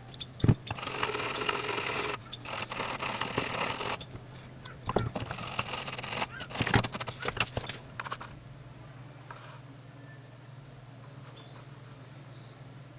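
Cleaning a satellite receiver's tuner circuit board with thinner: two long stretches of rushing, scratchy noise in the first four seconds and a shorter one about five seconds in, with a few sharp knocks. After that only a faint steady hum remains.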